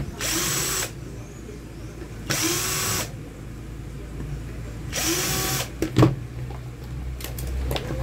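Cordless drill-driver run in three short bursts, each spinning up with a rising whine, backing out the screws that hold a wall fan's oscillator gearbox. A few sharp clicks and one loud knock follow in the last couple of seconds as the plastic parts are handled.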